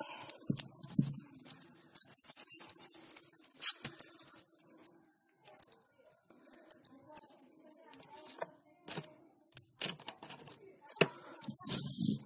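Handling noises: a wooden log section knocks down with a low thump, then a bent steel wire stand scrapes and clicks as it is handled and fitted onto the log, with a few sharp single clicks and another thump near the end.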